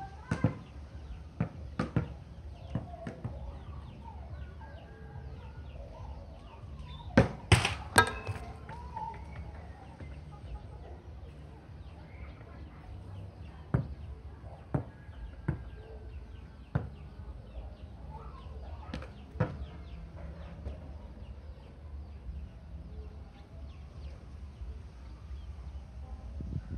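Domestic chickens clucking, with scattered sharp knocks; the loudest is a quick run of knocks about seven seconds in.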